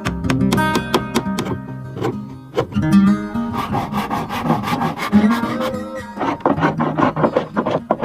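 Background music: acoustic guitar playing a run of picked notes, with no singing.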